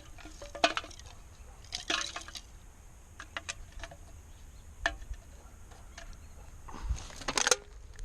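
Scattered light clicks and taps of handling, a few at a time over a low background, with a louder cluster of clicks near the end.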